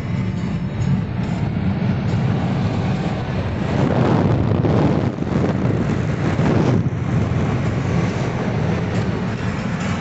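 Wind buffeting a phone's microphone held out of a moving car's window, over the steady rumble of the car on the road, swelling a little about four and six seconds in.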